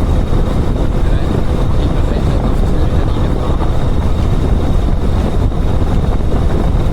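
Kawasaki VN 1500 Drifter's V-twin engine running steadily while riding, with heavy wind noise on the microphone.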